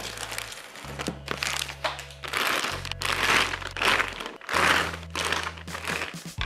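Thin clear plastic packaging bags crinkling in bursts as they are handled and pulled open, loudest around the middle. Background music with long held bass notes plays underneath.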